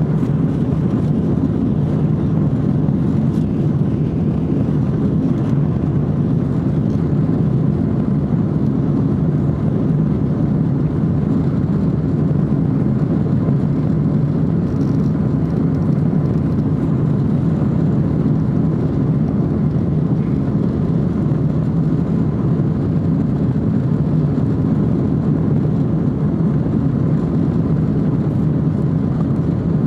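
Steady, even low drone of a vehicle in motion, unchanging throughout.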